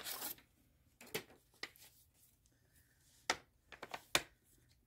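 Sheets of a printed paper pattern handled and shuffled: scattered short rustles and a few sharp paper taps, the crispest about three and four seconds in.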